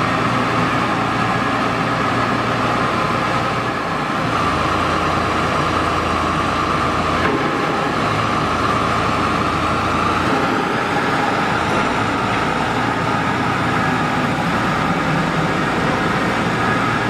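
Diesel engine and hydraulics of a small crawler rotary drilling rig running steadily as the rig slews its upper structure. The low engine note shifts a few times as the load changes.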